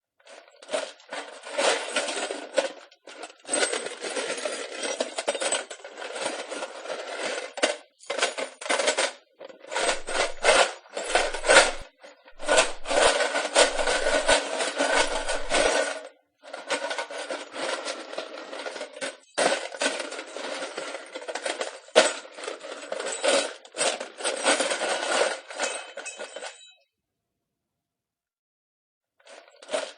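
Pieces of wood being handled: clattering and knocking against each other with some scraping, in dense runs broken by short pauses. The clatter stops for a couple of seconds near the end, then starts again.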